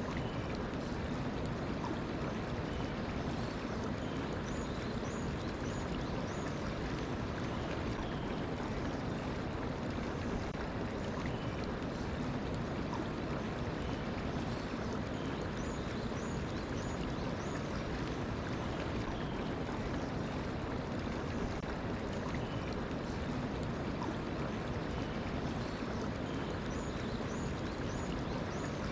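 Mountain stream flowing steadily, a constant rushing of water. A small bird calls in short series of high chirps about every ten seconds.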